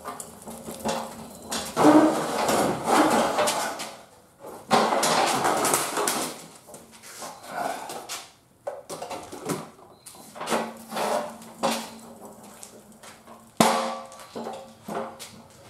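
Manual pallet jack rolled across a concrete floor: two spells of wheel rumble and frame rattle, then a run of metal clanks and knocks as it is handled and positioned, with one sharp bang near the end.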